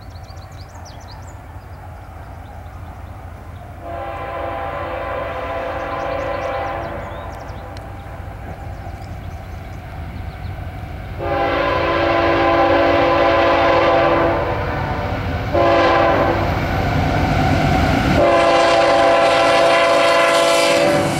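CSX diesel locomotive's air horn blowing the grade-crossing signal: two long blasts, a short one, and a final long blast that is still sounding at the end, over the steady low rumble of the approaching train.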